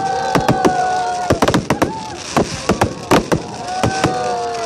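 Fireworks display: aerial shells bursting in a rapid, irregular series of sharp bangs and crackles, roughly three a second.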